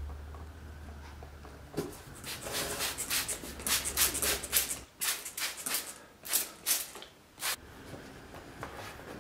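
Trigger spray bottle squirting onto a leather saddle seat: a quick run of hissing squirts, then a few single ones, over about five seconds.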